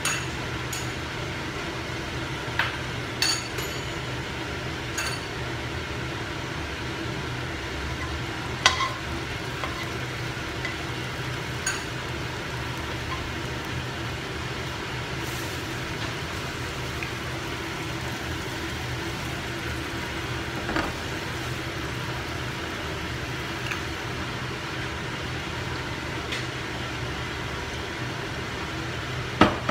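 Cooking oil heating in a non-stick wok, with a steady hum and faint sizzle throughout. A handful of light, sharp taps of a wooden spatula against the pan are scattered through it.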